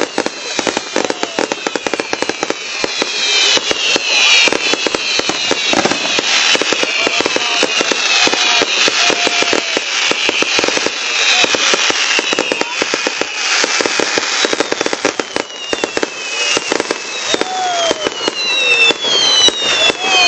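Aerial fireworks going off without a break: rapid cracks and bangs overlapping, with many whistling shells whose pitch slides downward.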